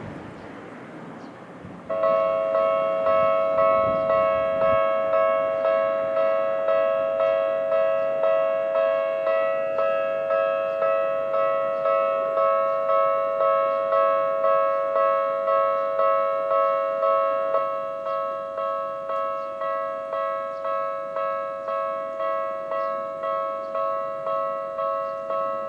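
Japanese railway level-crossing alarm with the electronic Tokyu-type tone, starting about two seconds in and sounding as a steady run of evenly repeated bell-like strokes, the warning that a train is approaching. About eighteen seconds in it drops to a lower volume and keeps ringing.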